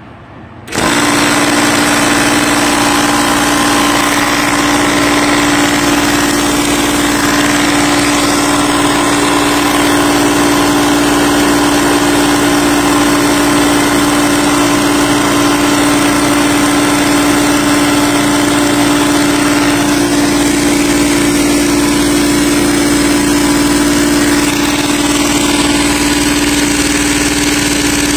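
Tuxing 4500 PSI high-pressure air compressor starting up about a second in and running steadily with a loud, constant hum, building pressure in a pressure test.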